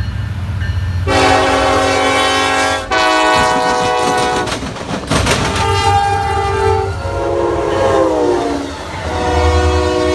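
Diesel freight locomotive air horns sounding in a series of long blasts from several different trains, cut together, over the low rumble of the engines. About seven seconds in, one horn chord slides down in pitch as the locomotive passes.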